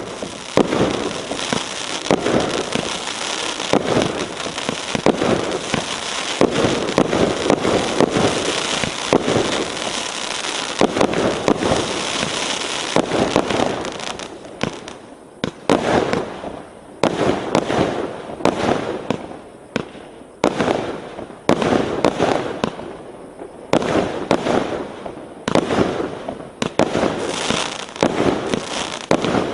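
A 339-shot consumer fireworks cake of 1-inch shells firing: for about the first half the shots and bursts come so fast they run together, then they come as separate bangs about once a second.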